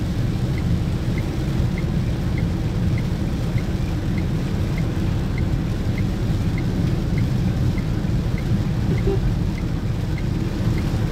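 Inside a car driving through heavy rain on a waterlogged highway: a steady low rumble of tyres on the wet road and rain on the car body. A faint indicator relay ticks evenly, about one and a half times a second.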